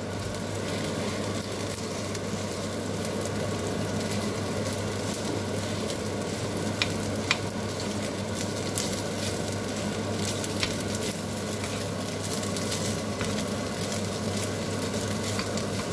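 Minced meat, onion and carrot sizzling in a non-stick frying pan while cold, clumped pasta from the fridge is stirred and broken up with a wooden spatula. A steady frying sizzle with stirring, and a couple of sharp clicks about halfway through.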